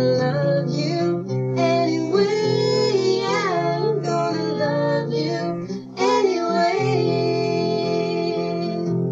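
Music: a slow song sung by a woman's voice over acoustic guitar.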